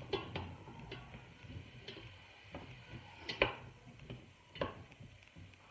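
Black slotted spatula stirring diced onions in hot olive oil in a stainless steel pot: scattered clicks and scrapes of the spatula against the pot, the loudest about three and a half seconds in, over a faint sizzle of the onions softening.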